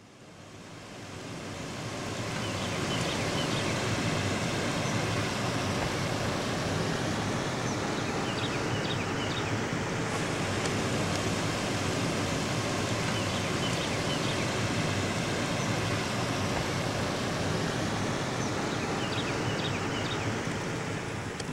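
A steady rushing noise, of the kind surf or wind makes, fading in over the first two seconds and then holding level, with faint high chirps now and then.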